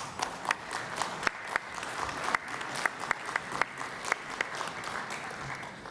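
Conference audience applauding, many hands clapping at once, welcoming the next speakers; the clapping dies away near the end.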